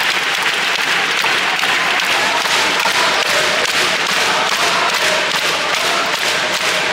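Football stadium crowd applauding: a dense, steady clapping that holds at an even level throughout.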